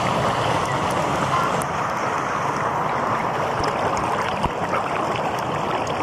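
Shallow mountain stream rushing and splashing over rocks close to the microphone, a steady rush of water.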